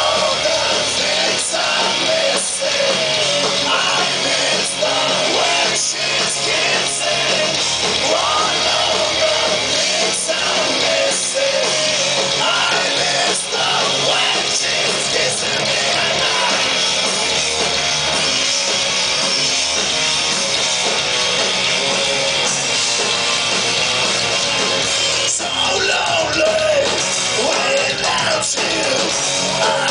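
Punk rock band playing live: electric guitars and drums driving steadily, with a male singer's vocal line coming in at several points.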